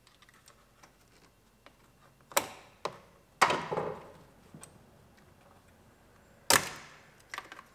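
Scattered light clicks and three louder knocks, about two and a half, three and a half and six and a half seconds in, from the airbag wiring connector and loose parts being handled and tucked up under a car's dashboard.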